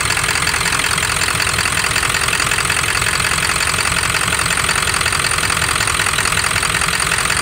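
Straight-piped 7.3 L Power Stroke V8 turbo-diesel idling steadily with its diesel clatter. It runs a little rough at idle, which the mechanic thinks calls for a set of injectors.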